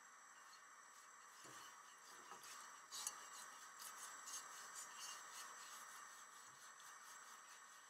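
Silicone basting brush spreading oil across a nonstick pan: a run of faint, irregular brushing strokes starting about one and a half seconds in and fading near the end, over a faint steady hiss.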